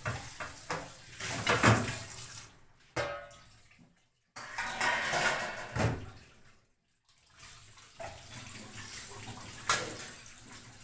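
Kitchen tap running into a stainless steel sink while dishes are rinsed, with occasional clatter of steel utensils. The sound cuts out briefly twice.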